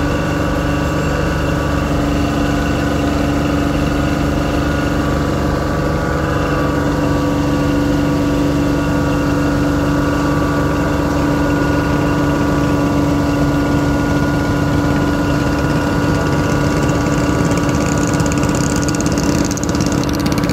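An engine running steadily at an even, unchanging speed, a constant loud drone.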